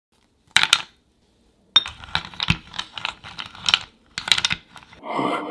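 An irregular run of sharp clicks and taps: a pair about half a second in, then a quicker flurry from a little under two seconds, with a typing-like sound. Near the end a rough, rushing sound effect rises in.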